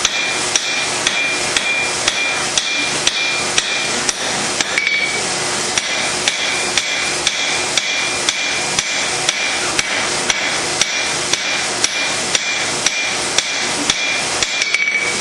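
Hand hammer striking hot steel on an anvil in steady blows, about three a second with a short break in the middle, each strike with a bright metallic ring, as the bevel is forged into a chef knife blade, over a steady rushing background.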